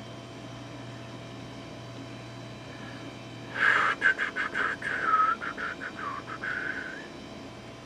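Floppy disk drive seeking while the computer boots: a stepping buzz with rapid clicks, its pitch dipping twice, starting about three and a half seconds in and lasting about three seconds, over a steady low hum.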